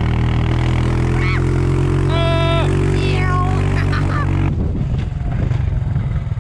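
ATV (four-wheeler) engine running steadily under way, its note turning rougher and lower about four and a half seconds in. A few short high-pitched cries sound over the engine in the first four seconds.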